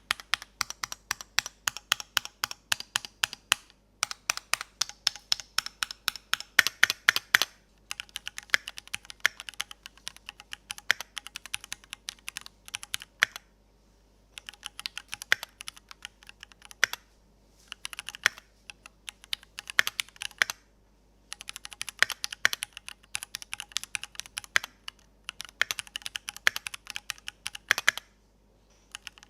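Typing on a Keychron Q2 gasket-mount mechanical keyboard with pre-lubed Gateron Pro Red switches and PBT OSA-profile keycaps. Rapid keystroke clacks come in runs of a few seconds with short pauses between, and the sound is free of the hollow ring of its predecessor.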